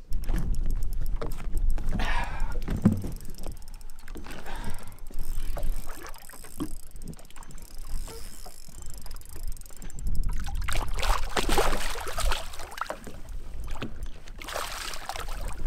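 A hooked bass splashing at the water's surface beside a boat, in bursts about ten seconds in and again near the end, over a steady low wind rumble on the microphone.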